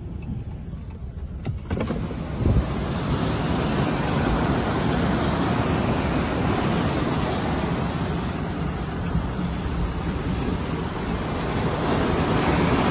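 Floodwater rushing and heavy rain as a steady noise heard from a vehicle. It grows fuller about two seconds in, after a brief click.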